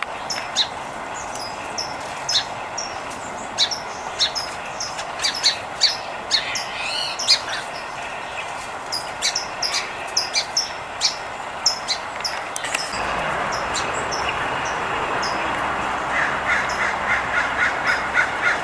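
Sparrows and other small birds chirping, many short high chirps scattered throughout. About thirteen seconds in a steady rushing noise comes up. Near the end a fast run of lower, harsher calls joins, about four a second.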